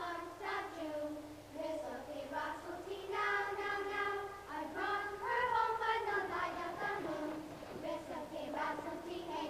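A class of young children singing a repetitive song together in unison, with held, sung notes.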